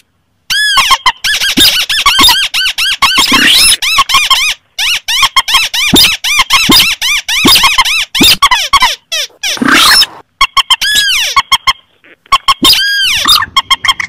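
Bird-lure recording mixing the calls of rails and crakes (swamphen, crake and rail): loud, rapid, overlapping squeaky notes, each rising then falling in pitch, repeated in dense runs with brief silent breaks about four and a half, ten and twelve seconds in.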